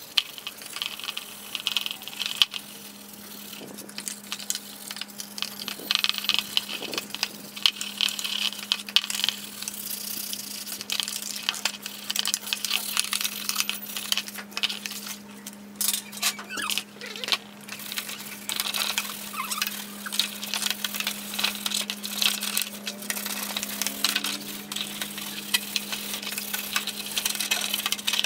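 Sponge scrubbing a metal amplifier chassis panel in a plastic basin of soapy water: irregular rasping strokes, splashes, and small metallic clinks and knocks as the panel shifts against the basin. A steady low hum runs underneath.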